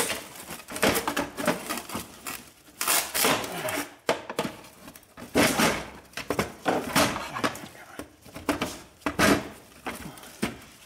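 A long steel bar knocking, scraping and prying against the hard plastic front shroud of a 1984 Corvette as the shroud is forced and broken out, in irregular bursts of clatter.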